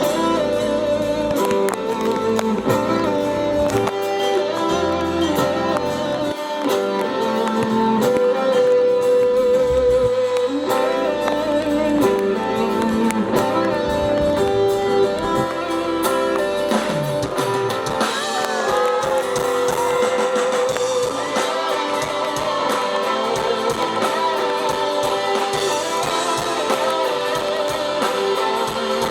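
Live instrumental music led by guitar, with sustained notes and no vocals: the introduction to a slow song.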